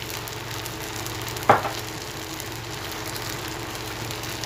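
Steady hiss at a gas stove while a little oil heats in a small steel tempering ladle over the lit burner, with a faint steady hum underneath. One short sharp knock about a second and a half in.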